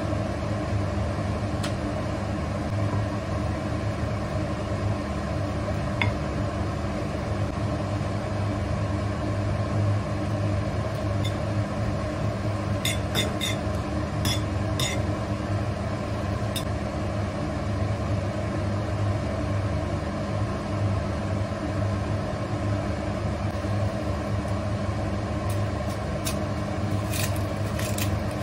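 A steady electric hum from a running appliance or motor, with a few light clinks about halfway through and again near the end.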